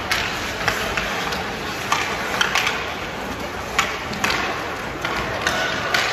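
Ice hockey play: hockey sticks clacking on the puck and ice, with skates scraping, heard as about a dozen irregular sharp clacks over a steady rink hubbub.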